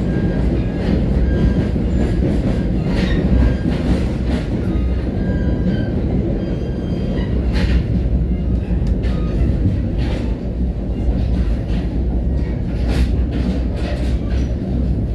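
Steady low rumble of an NJ Transit commuter train running along the track, heard from on board, with a few scattered clicks from the wheels over the rails.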